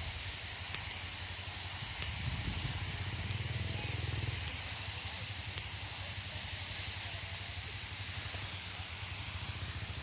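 Steady rushing hiss of falling water from a waterfall, with a low rumble that swells about two seconds in and eases a couple of seconds later.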